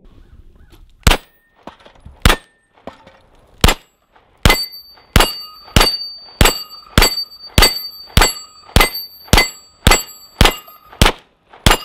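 About sixteen shots from a Canik TP9SFL long-slide 9mm pistol. Three come slowly at first, then a steady string follows at a bit under two shots a second. Steel targets ring with a clang after most of the shots in the string.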